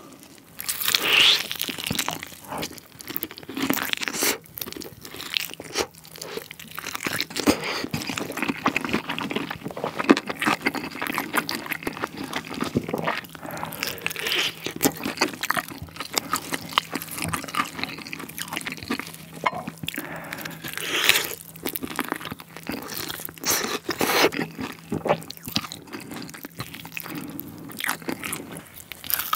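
Close-miked eating sounds: irregular crunchy bites and chewing of a fried chicken-skin dumpling coated in spicy sauce.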